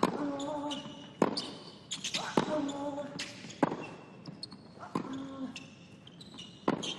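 Tennis rally on a hard court: sharp racket strikes on the ball about every second or so, with a player's short grunt after roughly every other shot.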